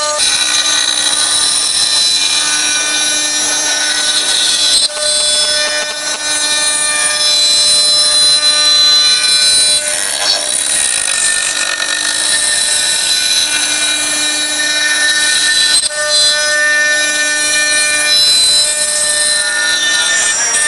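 A 4-axis CNC router spindle whines steadily while its bit cuts a wooden blank turning on the rotary axis, carving it into a gourd shape. The noise of the cutting shifts a little in loudness now and then as the bit moves along the piece.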